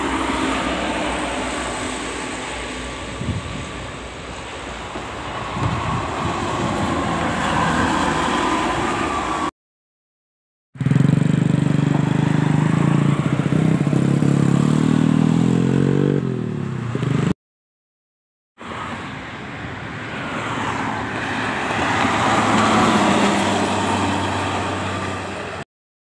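Intercity buses passing on a highway, with a steady rush of engine and tyre noise that swells as each one nears, broken by two short silences. In the middle section, the loudest part, a bus sounds a multi-tone 'telolet' (basuri) air horn, its notes stepping up and down in a little tune.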